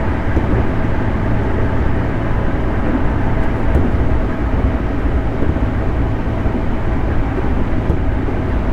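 JR 211 series electric multiple unit running along the line, heard from inside the car: a steady, continuous rumble of wheels on rail and traction motors with faint steady tones.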